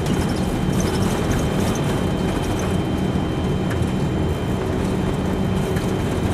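Steady, loud rumble of a Boeing 747-200 heard inside its cockpit as it rolls down the runway on its takeoff run, engines at takeoff power, with a thin steady high tone over it.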